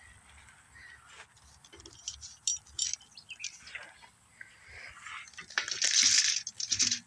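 Footsteps through short grass with light clicks and rustles of handling, building to a loud rustling scrape about six seconds in.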